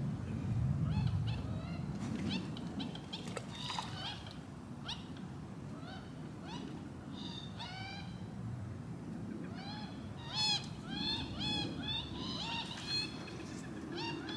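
Birds calling: many short, downward-sliding calls in quick runs, thickest in the second half, over a low wind rumble on the microphone.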